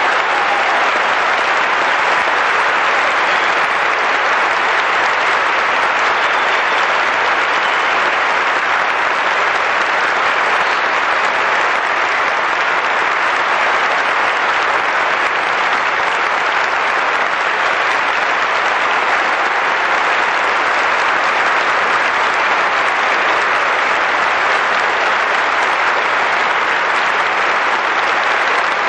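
Audience applauding, a steady, sustained ovation that neither builds nor fades.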